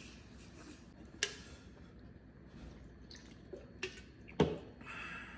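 Quiet, wet eating sounds of a spoon working through a burrito bowl and a full mouth chewing, with three short sharp clicks: about a second in, just before four seconds and shortly after.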